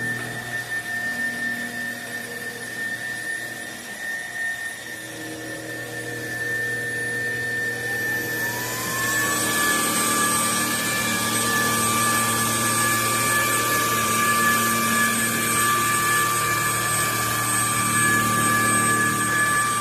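Trucozie cordless stick vacuum's motor running with a steady whine. About eight seconds in, the pitch rises and it settles louder as the motor speeds up.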